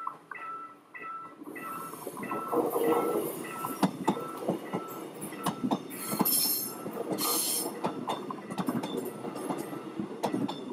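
Level-crossing warning bell dinging about twice a second, then an electric commuter train passing through the crossing from about a second and a half in. Its wheels clack repeatedly over the rail joints, and there are two brief high wheel squeals near the middle.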